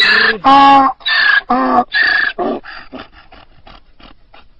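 Donkey braying, a loud hee-haw alternating between higher and lower pitched calls, then trailing off into a run of short, fainter wheezing gasps that quicken and fade away.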